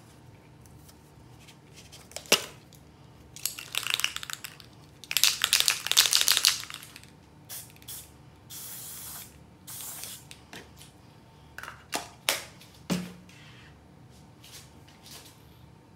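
Aerosol spray can sprayed in several short hissing bursts, the longest and loudest a few seconds in, with a few sharp clicks between them.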